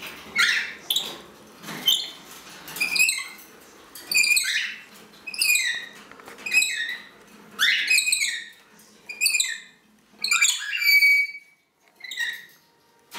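Green-naped lorikeet calling over and over, about a dozen high-pitched calls roughly a second apart, each starting sharply and sliding down in pitch. One longer, held call comes near the end.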